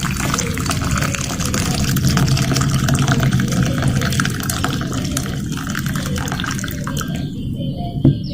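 Water running or rushing steadily, thinning out about seven seconds in, with a brief louder sound just before it ends.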